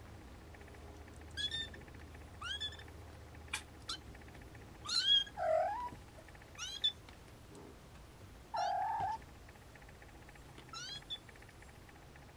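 Snowshoe kittens mewing: a scattering of short, high-pitched rising mews, with two lower, longer meows in the middle. There are two light clicks a few seconds in.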